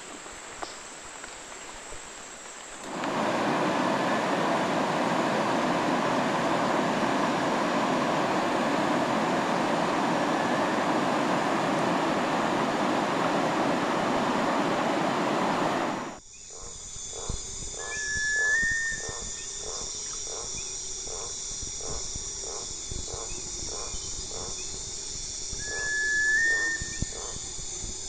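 Rushing river rapids, a loud steady wash of water, for about thirteen seconds, starting a few seconds in and cutting off abruptly. Then jungle night-and-day chorus: steady high insect trills, a pulsing call about twice a second, and twice a bird's long whistle that steps up in pitch at its end.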